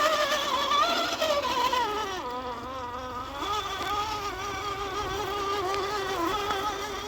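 Axial SCX10 II RC crawler's electric motor and geared drivetrain whining. The pitch slides down about two seconds in as the crawler slows, then holds steady at a lower pitch with small wavers.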